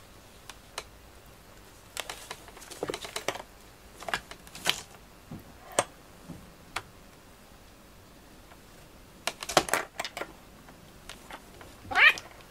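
Two cats play-fighting: scattered scuffles and claw scratches on a cushion. Near the end comes a short cat call that rises in pitch, the loudest sound, as one cat pounces on the other.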